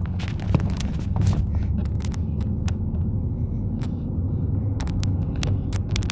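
Car on the move: a steady low road rumble with scattered sharp ticks and clicks.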